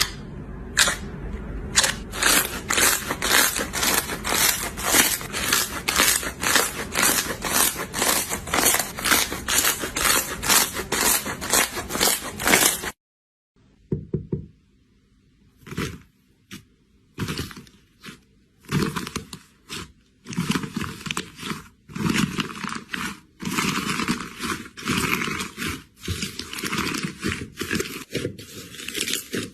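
Slime being worked by hand, with sharp sticky pops and clicks about three times a second that stop abruptly about halfway through. After a brief quiet gap, slime is squeezed and pressed again in irregular, longer squelching bursts.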